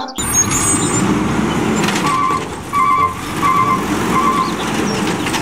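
Automated side-loader garbage truck running in the street, with a warning beeper sounding four short, evenly spaced beeps from about two seconds in.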